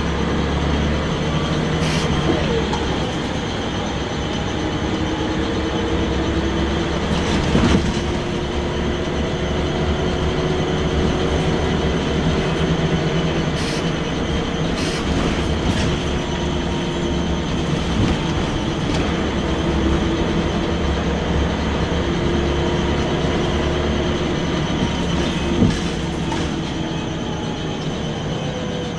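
Interior noise of a Scania L94UB single-deck bus under way: the rear engine and driveline running steadily with a whine that slowly shifts in pitch, over road and tyre rumble. A few sharp knocks and rattles from the bodywork, the loudest about 8 seconds in and again near the end.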